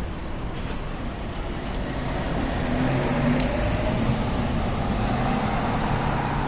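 Road traffic: a steady rumble of passing vehicles, with a vehicle engine growing a little louder partway through.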